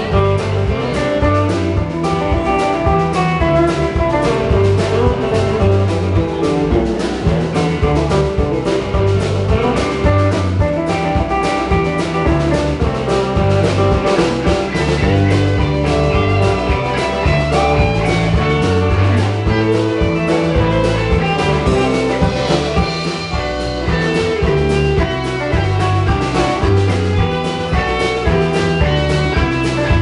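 Live band playing an instrumental section of a southern-rock song: electric guitars over drums, with no singing.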